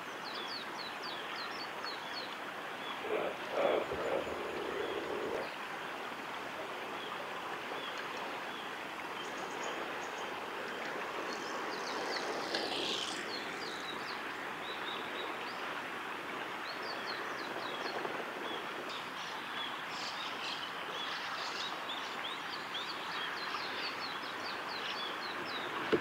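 Outdoor ambience by a small stream: a steady rushing hiss, with frequent short, high chirps from small birds. A louder, lower sound passes between about three and five seconds in.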